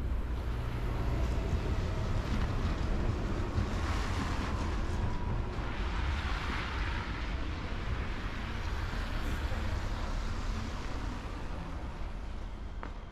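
Street traffic: a passing vehicle's tyre hiss swells in the middle and then fades, over a steady low rumble of wind on the microphone.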